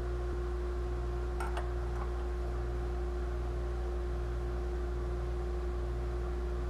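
Steady low hum with a held tone, throbbing slowly about once a second, and a faint click or two about a second and a half in.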